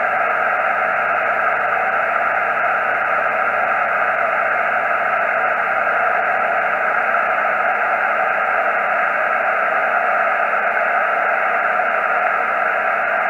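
HF amateur radio receiver on the 40-meter band putting out steady static hiss between transmissions, heard through a Yaesu FT847's narrow speaker passband.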